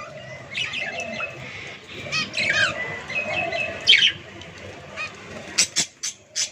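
Several caged birds chirping and calling over one another as they bathe, with a few short sharp noises near the end.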